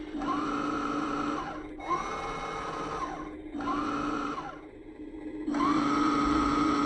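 Radio-controlled toy dump truck's electric drive motor and gears whining in four short bursts, each rising in pitch as it spins up and falling as it stops, with the last burst running on to the end.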